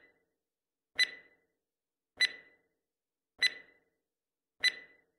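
Countdown timer sound effect: sharp electronic ticks, each with a short ringing tone, evenly spaced about 1.2 seconds apart, four in all.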